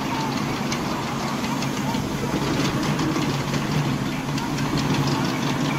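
Amphibious excavator's diesel engine running steadily as the machine crawls through shallow water on its pontoon tracks, with a rapid light clicking over the steady hum.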